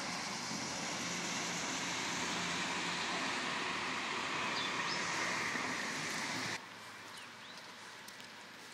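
Steady hiss of traffic on a highway below, with a faint low hum. About six and a half seconds in it cuts off suddenly to a much quieter background with a few light ticks.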